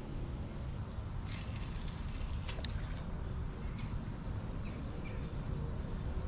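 Wind buffeting the microphone, a steady low rumble, with a faint steady high-pitched hum and a single sharp click about two and a half seconds in.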